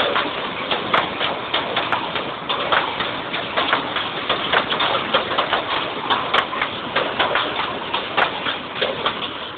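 2 ft narrow-gauge passenger coaches rolling past close by, their wheels clicking and clanking over the rail joints at roughly two to three sharp clicks a second over a steady rumble, growing fainter near the end as the train moves away.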